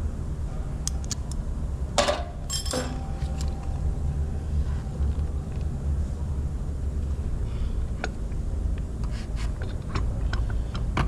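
Clinks and knocks of metal tools and parts being handled during dual-clutch transmission work, over a steady low rumble. Two sharp knocks come about two seconds in, with lighter ticks scattered later.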